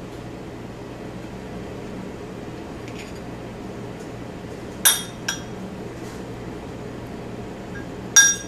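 A metal fork clinking against a dish while scooping shredded beef: a faint tap about three seconds in, two sharp ringing clinks around five seconds, and another near the end, over a steady low hum.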